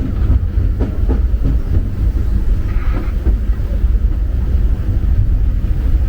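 Disneyland Railroad steam train's passenger car rolling along the track. A steady low rumble, with a few sharp wheel clicks on the rails about a second in.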